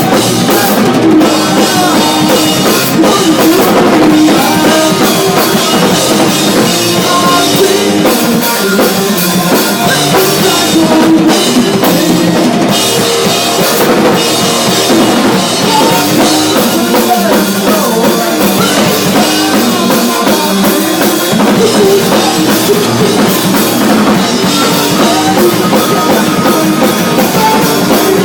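Live punk rock band playing loud, with a pounding drum kit and guitars.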